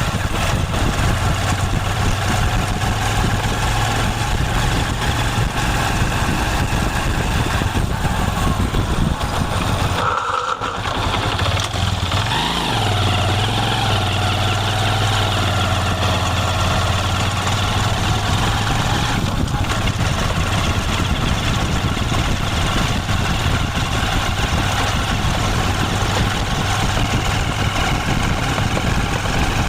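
Motorcycle engine idling steadily. About ten seconds in it dips briefly, and just after there is a short rise and fall in pitch, like a small throttle blip, before it settles back to a steady idle.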